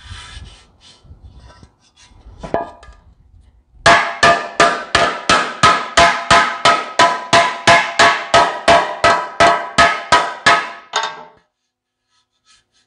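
Ball-peen hammer beating the dented rim of a sheet-metal tractor air cleaner cover against a cast-iron differential housing used as a dolly, straightening out the dents. After a few light knocks, a fast, even run of about 25 ringing metal-on-metal blows, three or four a second, lasts some seven seconds.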